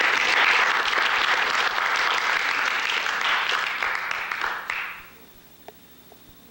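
Audience applauding, which dies away about five seconds in.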